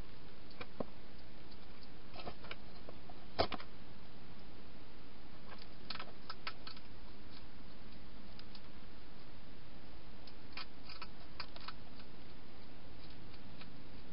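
Wild hedgehog eating inside a plastic feeding station: scattered clusters of sharp crunching clicks, with one louder knock about three and a half seconds in, over a steady hiss.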